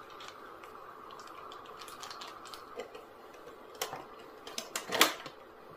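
Scattered light clicks and taps of hands handling cardboard packaging as the RC truck is taken out of its box insert, with one sharper knock about five seconds in, over a faint steady room hum.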